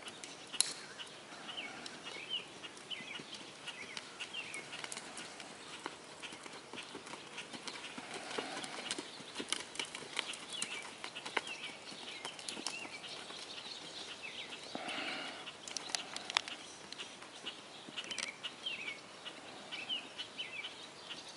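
Bay American Quarter Horse gelding cantering on arena sand: soft, scattered hoofbeats, with small birds chirping in the background.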